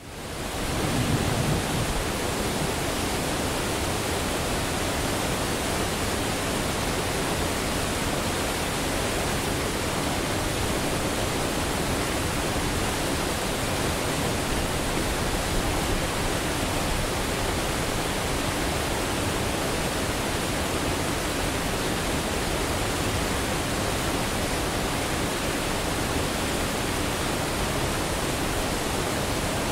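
Waterfall: falling water in a steady, even rush that fades in over about the first second.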